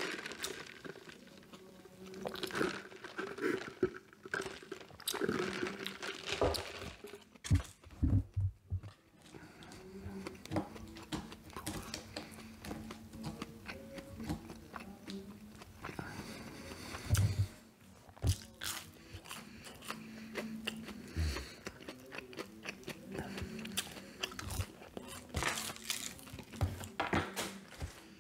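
A person biting and chewing McDonald's Chicken McNuggets close to the microphone: irregular crunching and clicking mouth noises.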